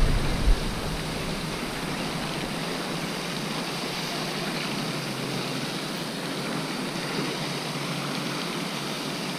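Steady, even hiss of wind on the microphone, with no distinct splashes or reel clicks standing out.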